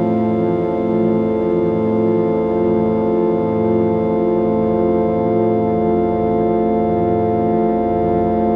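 Meditation drone of many steady, layered synthesized tones at solfeggio healing frequencies, held without a break, with a slow, even pulsing in the low tones.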